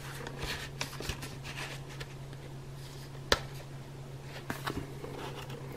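Quiet room with a steady low hum and a few faint handling clicks, one sharper click a little past the middle.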